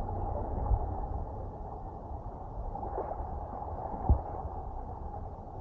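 Sea water lapping and splashing around a microphone held just above the surface, over a steady low rumble, with one sharp thump about four seconds in.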